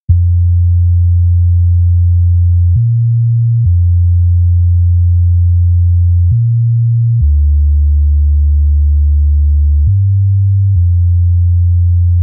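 Solo synth bass line from FL Studio's 3x Osc: plain, pure low notes with hardly any overtones. Long held notes alternate with short higher ones, seven notes in all.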